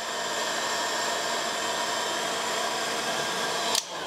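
Electric heat gun running steadily, a constant blowing noise with a fixed whine, then switched off, cutting out sharply near the end.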